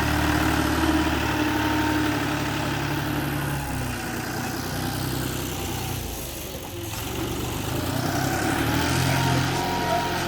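Bulldozer's diesel engine running steadily, easing off briefly about six seconds in and picking up again.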